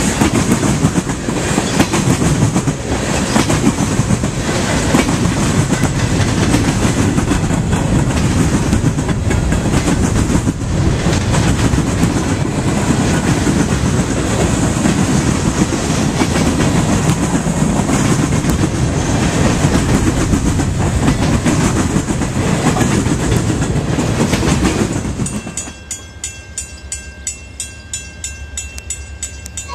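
A long freight train's tank cars and covered hoppers rolling past close by: a steady rumble with wheels clicking over the rail joints. About four seconds before the end the sound drops to a much quieter background with faint, evenly spaced ticks.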